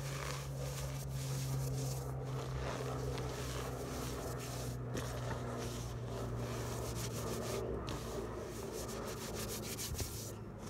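Hands squeezing and crumbling crushed floral foam coated in cornstarch, a continuous soft crunching and rubbing with many fine crackles.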